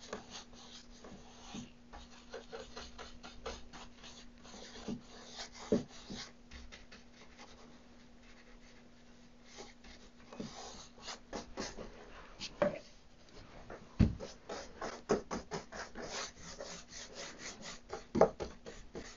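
Wide paintbrush laying blue paint onto a primed wooden cabinet panel: a run of quick, soft bristle swishes and rubs, with a few sharper taps.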